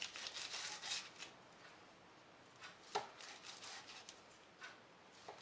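Chef's knife slicing through a log of folded, sugared puff pastry on parchment paper over a hard countertop: faint, short cutting strokes in two runs, one at the start and another about three seconds in.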